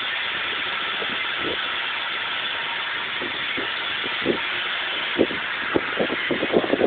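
A steam locomotive on the move, with a steady hiss and rush. Several short knocks come near the end, quickly at first and then faster.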